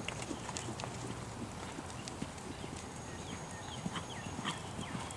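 Muffled hoofbeats of a ridden Thoroughbred gelding moving around on sand arena footing, an irregular run of soft knocks.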